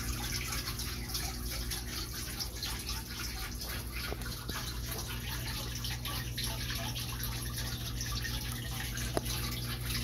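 Indoor water-wall fountain: water running down a glass panel and trickling into its basin, a steady splashing with many small drips over a low steady hum.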